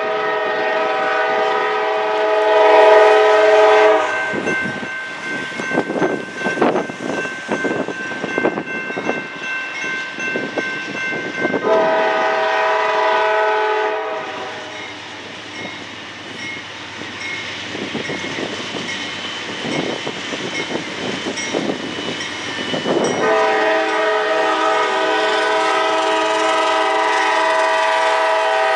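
Norfolk Southern GE D9-40CW diesel locomotive's air horn sounding for a grade crossing as the train approaches. There is a long blast at the start, a shorter one about twelve seconds in, and another long blast held near the end as the locomotive reaches the crossing. Between the blasts a crossing-signal bell rings with repeated strikes.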